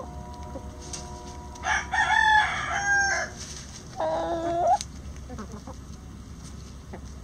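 A rooster crows about two seconds in, one loud call of over a second, followed by a shorter pitched call about four seconds in.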